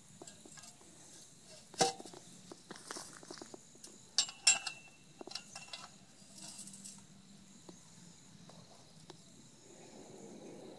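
A galvanized steel pipe knocking and clinking against a metal bracket on a concrete fence post as it is fitted: a few sharp metallic knocks, the loudest a pair about four seconds in that leave a short ring.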